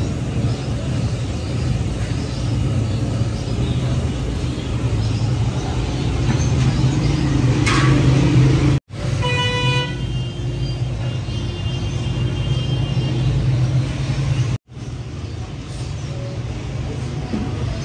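Busy street traffic with a steady low rumble of engines, and a vehicle horn honking about halfway through, followed by a thinner held horn tone for a few seconds.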